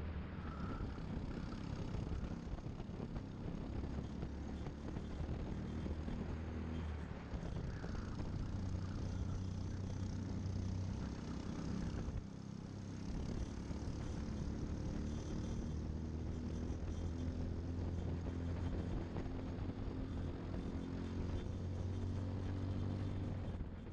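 Briggs & Stratton LO206 four-stroke single-cylinder kart engine running at racing speed on board a kart, its pitch shifting up and down with the throttle and briefly dropping about halfway through. Other karts' engines running close by mix in.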